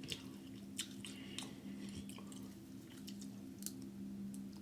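Faint close-up chewing and mouth sounds, with scattered small clicks, over a steady low hum.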